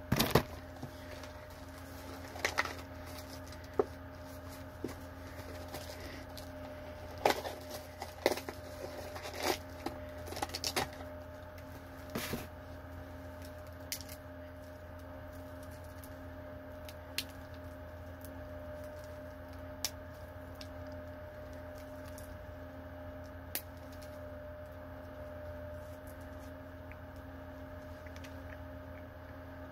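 Plastic wrapper crinkling and tearing as a candy cane is unwrapped, a cluster of sharp crackles and clicks over the first dozen seconds, then only a few scattered ticks. A steady low hum runs underneath.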